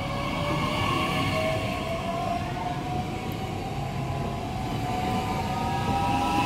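DB Regio Bombardier Talent 2 (class 442) electric multiple unit pulling out, its traction motors and inverters whining in several tones that rise slowly in pitch as it gathers speed. Under the whine is a steady rumble of wheels on rail.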